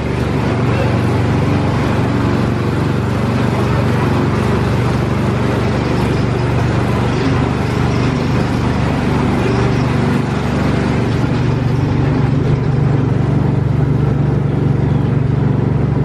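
A moving ride vehicle running steadily: a constant low hum under an even rumble, with no change in level throughout.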